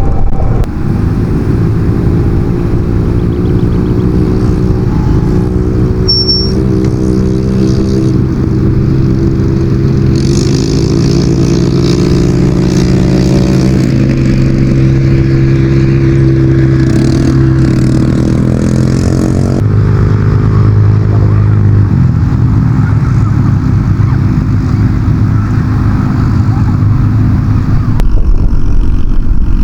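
Motorcycle engine running on the move, its pitch stepping and gliding up and down several times with throttle and gear changes.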